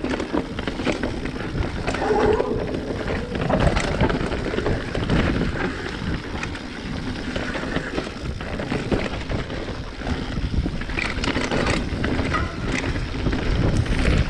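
Mountain bike rolling over a rough, rocky dirt trail: tyres rumbling on dirt and stones with frequent knocks and rattles from the bike, and wind buffeting the microphone.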